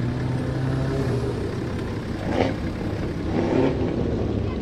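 Car engines idling with a steady low hum, a little louder in the first second.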